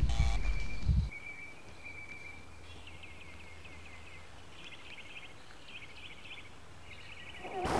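A loud low thumping noise cuts off about a second in. What remains is faint outdoor ambience with a low hum and birds chirping in short repeated trills. A louder noise swells in at the very end.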